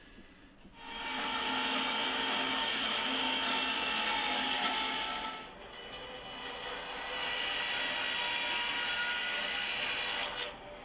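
Bandsaw cutting through a wooden block. The cut starts about a second in, eases off briefly around the middle, then runs again until it stops near the end.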